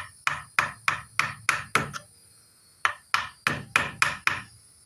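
A mallet tapping a chisel into a wooden pistol stock, cutting the ramrod channel: two runs of quick, light strikes, about four a second, with a short pause between them.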